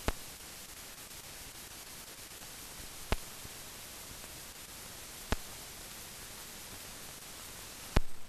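Steady hiss with four sharp clicks a few seconds apart, the last and loudest near the end: the surface noise of an old silent film transfer, with no aircraft sound.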